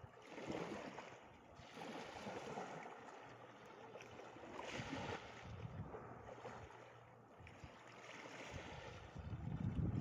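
Small waves washing on the shore with wind on the microphone. The wash swells and fades every couple of seconds, and a low wind rumble builds near the end.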